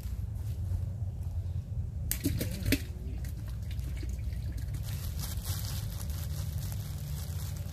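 Water splashing and dripping, with a few sharp clicks about two seconds in and a fizzing, crackly patter in the second half, over a steady low rumble.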